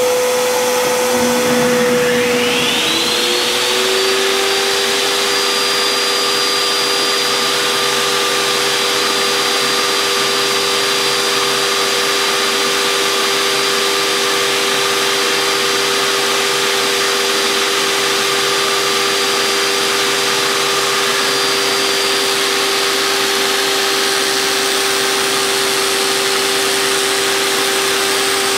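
Table saw fitted with a dado blade stack switched on: the motor spins up with a rising whine over about three seconds, then runs steadily at full speed.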